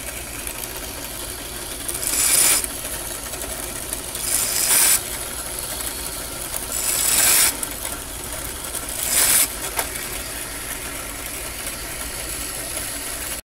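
A drill press motor running steadily, with four louder surges about two and a half seconds apart. It cuts off suddenly near the end.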